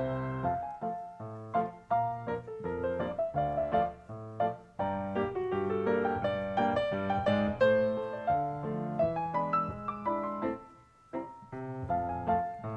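Background piano music: a steady run of struck notes and chords, briefly dropping away about eleven seconds in.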